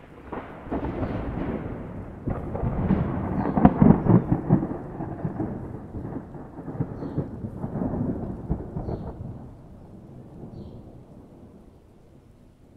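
A long roll of thunder. The rumble starts out of silence, builds to its loudest about four seconds in, swells again around eight seconds, then fades away.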